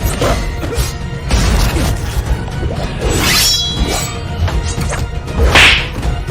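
Animated sword-fight soundtrack: a rapid run of whooshes and hits over film music, with extra inserted sound effects. The loudest sweeping noises come about three and a half seconds in and again near the end.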